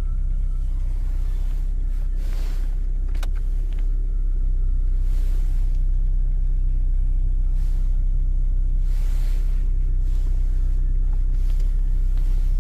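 Lada Vesta NG engine idling with a steady low hum; about four seconds in it gets slightly louder and holds there.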